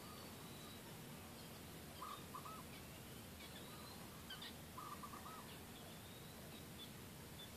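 Faint bird calls over a steady background hiss: a short mid-pitched phrase about two seconds in and another near five seconds, with thin high chirps scattered between them.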